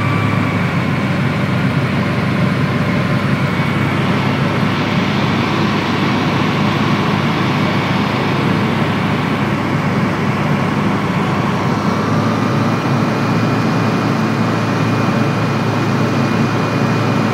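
Light propeller aircraft's engine and propeller droning steadily, as heard from inside the cockpit in cruise flight.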